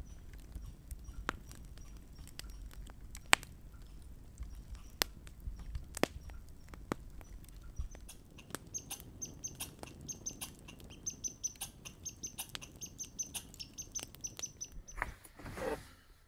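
Wood campfire crackling, with sharp pops over a low rumble of the flames. About halfway through, a bird starts calling with a rapid series of high chirps.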